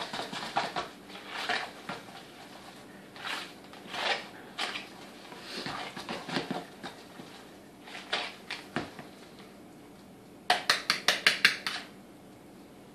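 A utensil stirring a thick spinach, ricotta and cheese mixture in a bowl by hand, with irregular scrapes and clicks against the bowl. Near the end, a quick run of about seven sharp clicks.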